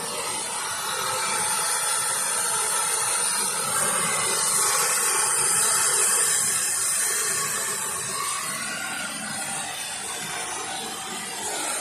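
A steady hiss, loudest about halfway through.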